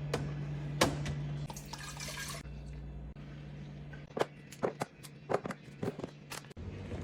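A run of light clicks and knocks, as of containers being set down and handled, over a steady low hum; a short splashing or rustling noise comes about two seconds in.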